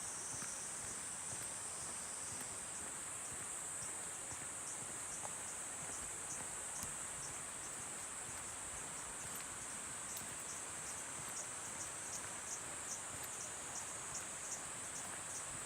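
Insects calling in a steady high-pitched drone, with a second insect chirping about twice a second from the middle on, over the faint wash of stream water.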